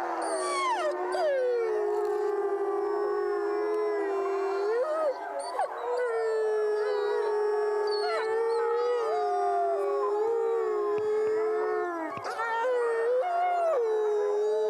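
A wolf pack howling in chorus: several long, overlapping howls. One low voice holds nearly steady while the others rise and fall in pitch above it.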